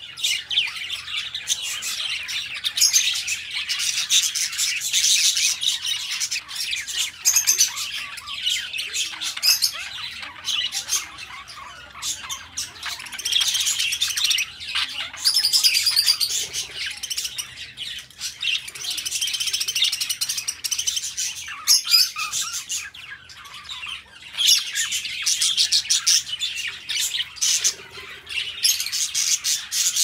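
A flock of budgerigars chirping and chattering together, many calls overlapping in a continuous stream with a few brief lulls.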